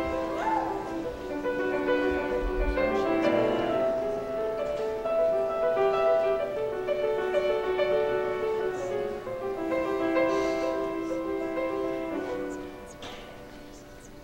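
Grand piano playing a slow solo introduction, held chords and melody notes, growing quieter near the end.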